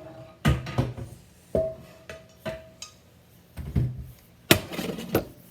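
Metal pots and pans knocking and clanking together as they are handled, at an uneven pace, a pan ringing briefly after some of the knocks.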